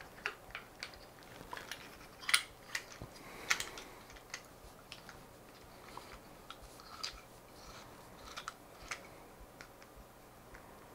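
Scattered small clicks and light scrapes from hands handling a smartphone tripod clamp adapter and turning its 1/4-20 mounting screw, with a couple of sharper clicks about two and three and a half seconds in.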